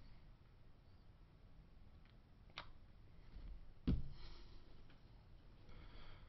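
Quiet room tone with a faint click about two and a half seconds in and a short, louder knock just under four seconds in.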